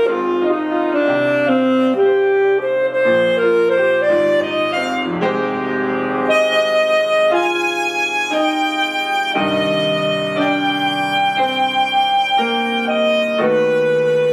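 Alto saxophone playing a melody of held notes over Steinway grand piano accompaniment, in classical recital style.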